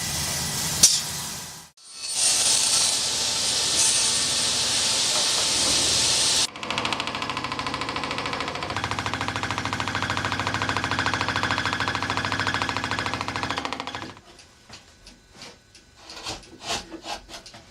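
Clock-case workshop sounds in several cuts: a steady hiss for about four seconds, then a machine running with a fast, even rhythm for about seven seconds, then scattered light knocks of hand work.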